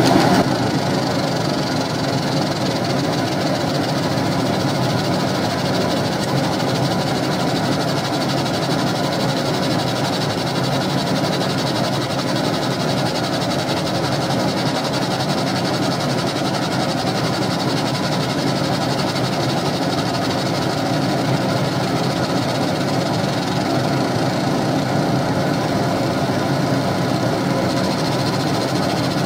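Laser engraver running while it engraves a small disc: a steady mechanical hum and whir that holds at one level throughout.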